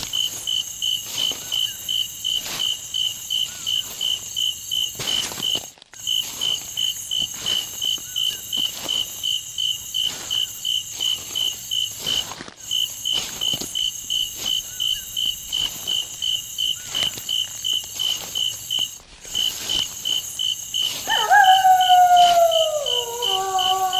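Crickets chirping steadily, about three chirps a second, with brief breaks every six to seven seconds. About 21 seconds in, wolves begin howling: several overlapping long howls falling in pitch, louder than the crickets.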